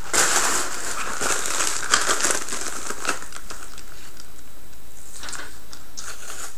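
Packaging crinkling and rustling as items are handled in an unboxing. It is dense for about the first three seconds, then thins to a few scattered crinkles.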